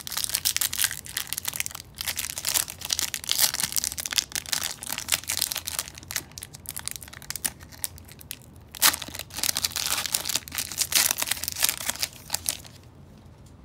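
A foil basketball trading-card pack wrapper being torn open and crinkled by hand: dense, irregular crackling and tearing that dies down near the end.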